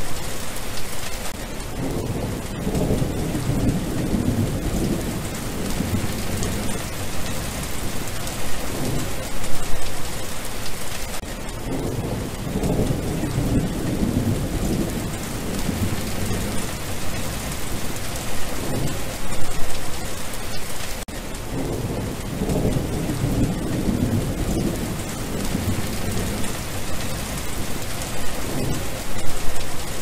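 Steady rain falling on wet ground, an even hiss of drops. Low rumbles swell up for a few seconds at a time, three times, about every ten seconds.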